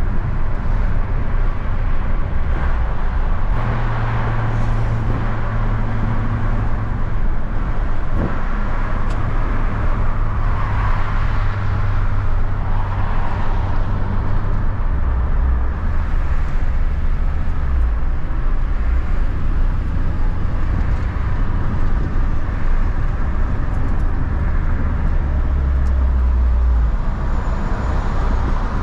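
Renault Kangoo van's 1.4-litre petrol engine and road noise while driving: a steady low drone whose pitch steps up and down a few times as the engine speed changes.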